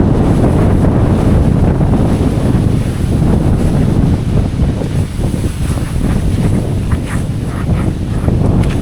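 Steady wind noise buffeting the microphone, heaviest in the low end, with a few brief rustling crackles near the end.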